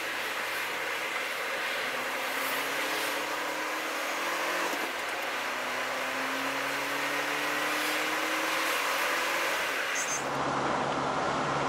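Engine and road noise heard from inside a moving vehicle as it accelerates. The engine note rises, drops about five seconds in at an upshift, and climbs again over steady tyre rumble, then settles near the end.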